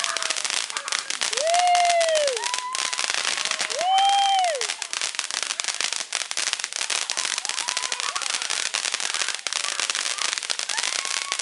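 Strings of firecrackers popping in a fast, unbroken crackle. Twice in the first few seconds a person's voice calls out in a long rising-then-falling shout over it.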